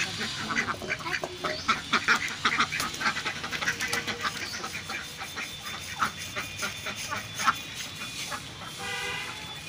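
Ducks quacking in a rapid, busy series, thinning out after about five seconds, with one longer call near the end.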